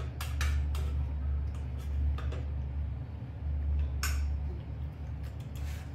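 A spoon scraping and clinking in a stainless steel bowl: a handful of short scrapes, the sharpest about four seconds in, over a steady low hum.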